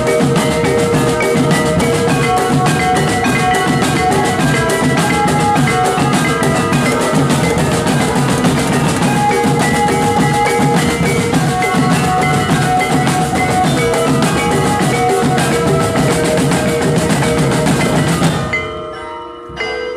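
Drum band of marching snare and tenor drums playing fast, dense drumming with a ringing glockenspiel-like bell melody over it. Near the end the drums stop abruptly, leaving only the bell notes ringing.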